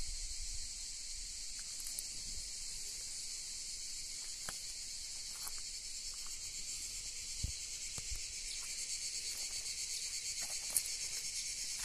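A steady, high-pitched chorus of insects calling from the surrounding scrub and trees, with a fine rapid pulse that grows stronger in the second half. A few faint clicks and a soft thump come through underneath it.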